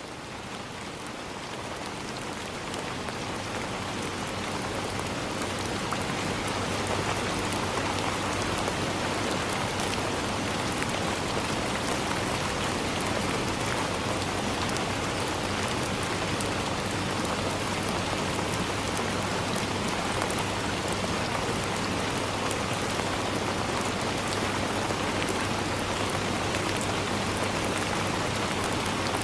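Steady rain falling on forest leaves, a dense patter of drops. It swells over the first few seconds and then holds steady.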